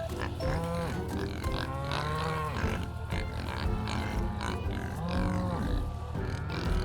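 Cattle mooing: about three drawn-out calls rising and falling in pitch, the longest about two seconds in, over soft background music.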